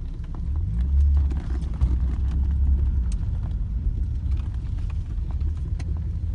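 Deep, steady rumble of a BMW 5 Series' swapped-in twin-turbo Toyota Supra straight-six, heard from inside the cabin as the car rolls slowly, swelling about a second in. Scattered light ticks sound over it.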